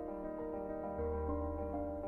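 Soft background music: a keyboard plays a slow run of notes over a low held bass note that changes about halfway through.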